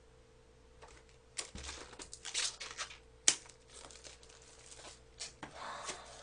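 Plastic wrapping crinkling and small plastic yogurt-drink bottles clacking together as they are unwrapped and set out, with one sharp click about three seconds in.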